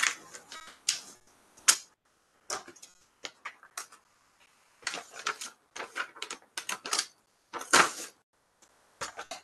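Paper rustling and crinkling in short, irregular bursts with quiet gaps: a sealed bid envelope being opened and its pages handled, loudest near the start and again shortly before the end.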